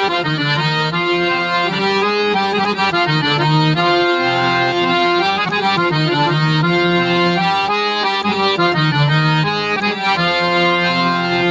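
Harmonium playing an instrumental interlude of a devotional bhajan melody: a run of held notes, each stepping to a new pitch.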